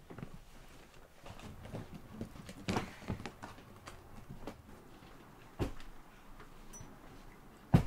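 Scattered footsteps and knocks as a person walks off and then pulls open wooden dresser drawers, with a sharp knock near the end the loudest.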